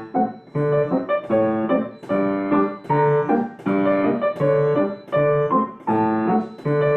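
Piano playing a march-like accompaniment, a bass note and a chord alternating about twice a second, with a very short rhythmic sustain pedal caught on the bass notes so that each one rings a little longer.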